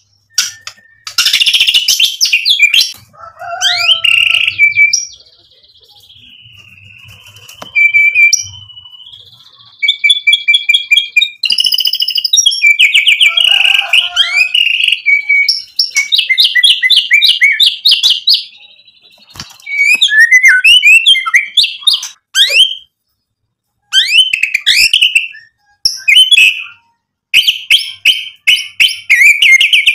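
Male white-rumped shama (murai batu) singing a loud, varied song. It mixes fast trills and clear whistles, including a long held whistle that steps up in pitch about a third of the way in. Dense bursts of rapid rattling notes come around the middle and again near the end, with brief pauses between phrases.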